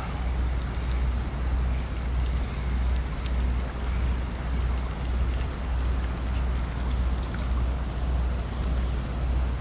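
Steady rush of water pouring over a spillway, with a low, evenly pulsing rumble underneath.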